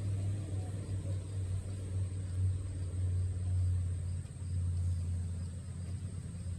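Pickup truck engine idling: a steady low rumble that swells and eases slightly.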